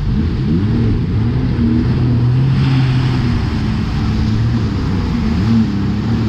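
Jet ski engine running at speed, its pitch rising and falling as the throttle changes, over the rush of water and wind. A brief louder hiss comes about two and a half seconds in.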